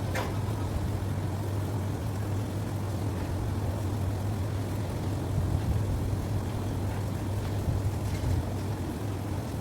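Vehicle engine running steadily with a low drone, at a constant speed.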